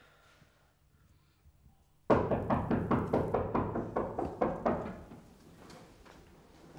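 Loud, rapid pounding on a door, starting suddenly about two seconds in and going on for about three seconds before it stops.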